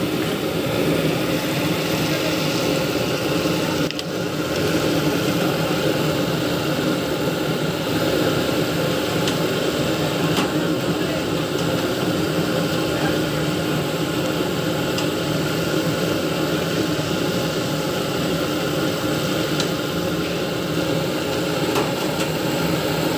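Fish deep-frying in large woks of bubbling oil: a steady sizzling noise, with a few faint clinks.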